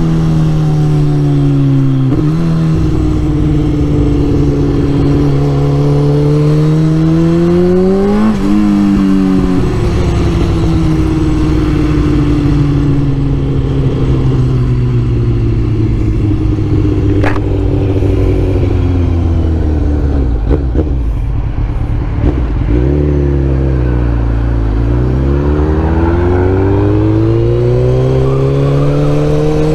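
2004 Kawasaki Z1000's inline-four engine through a full aftermarket exhaust system, heard while riding. It revs up through the gears, with a sharp drop in pitch at each upshift about two and eight seconds in. It then winds down slowly as the bike slows, and revs up again near the end.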